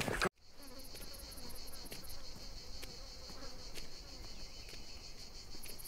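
Insects chirping in the dry-country heat: a steady high buzz with rapid, very high chirps coming in two spells, about seven or eight a second, one early on and one near the end.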